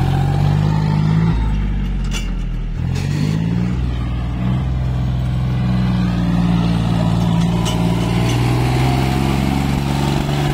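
John Deere 5050D tractor's diesel engine running hard. The revs drop about a second in, climb again around three seconds in, then hold steady.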